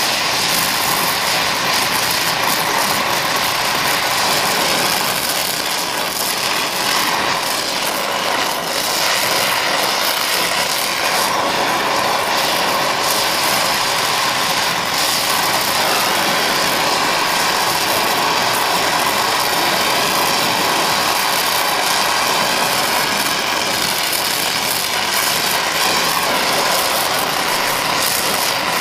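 Oxy-fuel brazing torch flame hissing steadily as bronze brazing rod is melted onto a red-hot cast iron part.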